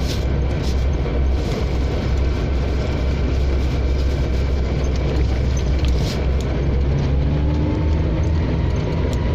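Off-road 4x4 pickup driving along a trail: steady low engine and tyre rumble, with a few light knocks and rattles.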